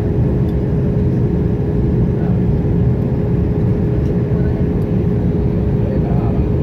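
Airliner cabin noise on the landing approach: a steady low rush of engines and airflow with a constant mid-pitched whine.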